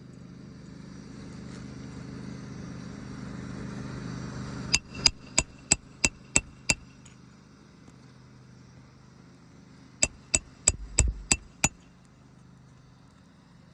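Hammer striking a roof snake nailing tool with sharp metallic, ringing blows, driving the last nail up under a shingle: seven quick strikes about three a second, a pause, then six more. A low rumble swells in the first few seconds before the blows.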